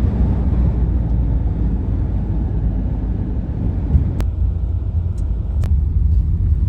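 Steady low road rumble of a moving car heard from inside the cabin, with two faint clicks about a second and a half apart past the middle.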